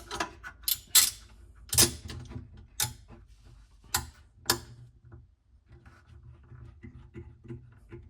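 Handling sounds of a wooden spacer and tools being set against a cabinet box. About half a dozen sharp clicks and knocks come in the first five seconds, followed by fainter, quicker ticking.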